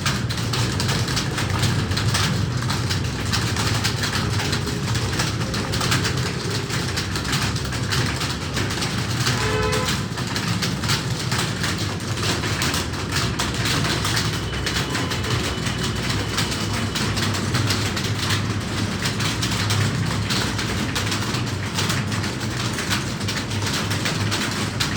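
Continuous clatter of many computer keyboards being typed on at once, a dense run of fast key clicks with no let-up.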